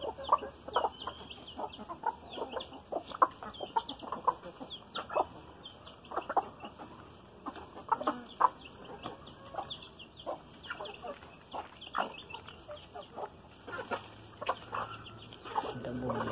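Chickens clucking: an irregular run of many short clucks, with higher short chirps among them.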